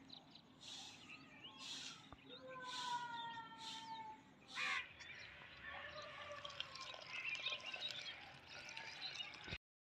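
A grass broom swishing over dusty ground in strokes about once a second, with birds calling. Later, a denser hiss as water from a hose pours into a clay plant pot.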